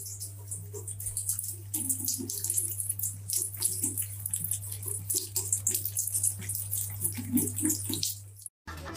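Water splashing and running, with a steady low hum underneath; both stop suddenly near the end.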